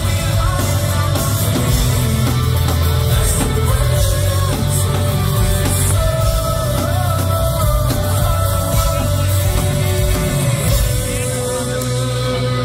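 Rock band playing a song live: electric guitars and full band with a singer's vocals over them.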